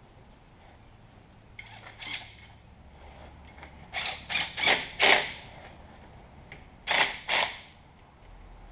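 Hand tool work on the end of a truck rear axle: a series of short, sharp mechanical bursts, the loudest four in quick succession about four to five seconds in and two more about seven seconds in.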